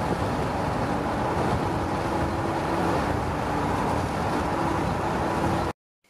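Steady road and engine noise heard inside a moving car's cabin, with a faint low hum, cutting off suddenly near the end.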